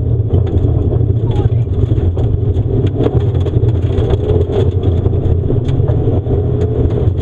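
Mitsubishi Lancer Evolution IV rally car's turbocharged 2.0-litre four-cylinder engine pulling hard under acceleration on gravel, heard from inside the cabin. Loose gravel pings and clatters against the underbody as many short sharp clicks.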